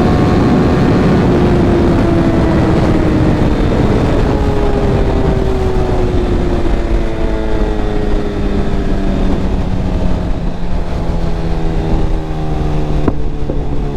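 Tuned Suzuki GSX-R1000 inline-four engine heard from the moving bike under heavy wind noise, its note falling slowly as the bike slows. Near the end the wind eases, there is a short click, and the engine settles to a lower, steady note.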